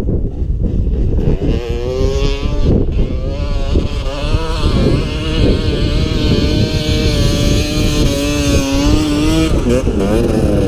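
Motorcycle engine running under load. Its pitch rises about a second and a half in, holds with small wavers, then drops near the end, over a constant low rumble.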